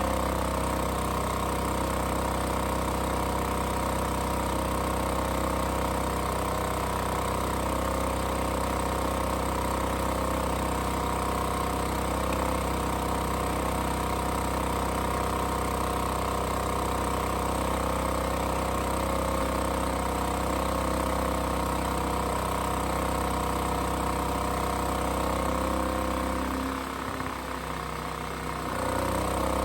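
Firman W3300-series portable inverter generator's gasoline engine running steadily at idle, now starting and running after its no-start repair. It dips briefly in level near the end, then picks back up.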